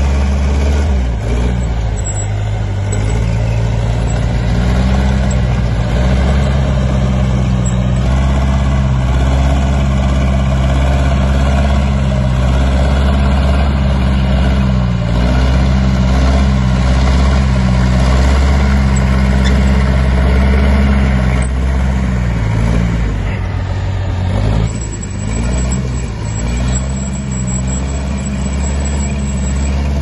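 Bulldozer's diesel engine running steadily with a deep, even drone, easing off briefly near the end.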